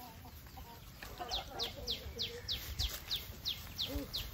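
Birds calling: a rapid series of short, falling high notes, about three a second, starting about a second in, with a chicken's low cluck near the end.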